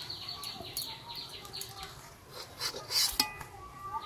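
Metal spatula clinking and scraping on a stainless steel plate as pieces of fried eggplant are moved onto it, with a few louder clinks about three seconds in.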